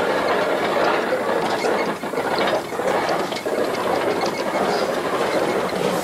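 1915 Baldwin 0-6-2T tank locomotive rolling along light plantation track, heard from the cab: a steady, dense clatter and rattle of the running gear and of the wheels on the rails.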